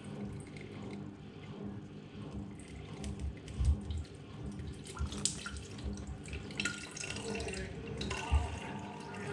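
Water running and splashing in a sink, with a few dull knocks.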